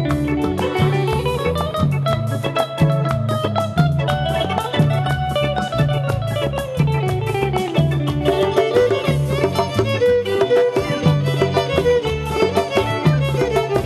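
Live band playing an instrumental passage: a violin melody gliding up and down over plucked guitar and a hand drum, with a steady, regular beat.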